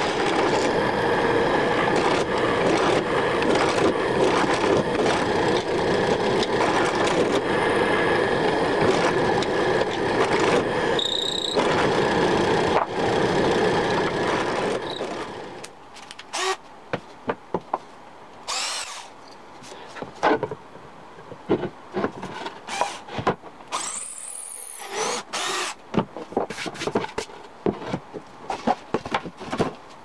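Bench drill press running and boring into a block of wood with a loud, steady noise. About halfway through it stops, giving way to quieter handling clicks and a few short spins of a Festool TXS cordless drill.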